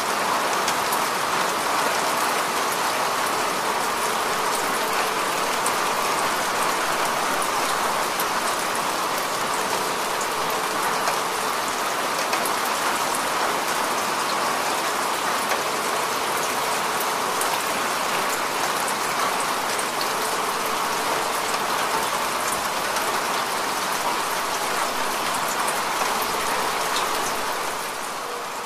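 Steady heavy rain: a dense, even hiss of falling rain with many small drop ticks, and no thunder.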